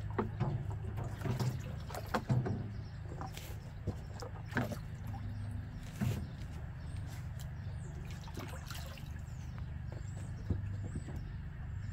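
Hand moving and splashing icy water in a galvanized stock-tank cold plunge, with scattered knocks and sloshes, over a steady low rumble.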